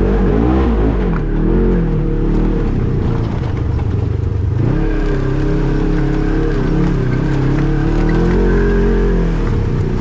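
Off-road vehicle engine rising and falling in pitch as the throttle is worked: it drops in the first second, climbs again about five seconds in, holds, rises once more and falls off near the end.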